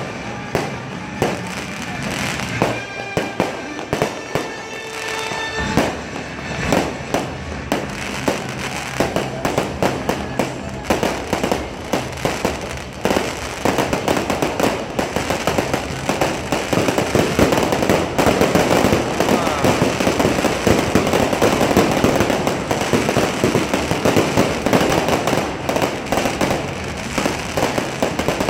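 Fireworks show: sharp bangs in quick succession, building into a dense, near-continuous crackle that is loudest in the second half. Music plays under the first few seconds.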